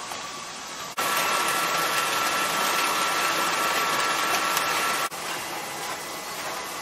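Automated case packing line running: conveyors and drive motors making a steady mechanical noise. It turns abruptly louder about a second in, with a steady high whine, then drops back to the lower level about five seconds in.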